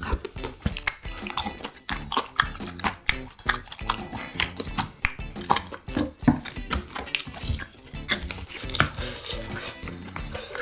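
Close-miked eating: chewing with wet mouth sounds, and utensils clicking and scraping against bowls as fried rice is scooped. Music plays quietly underneath.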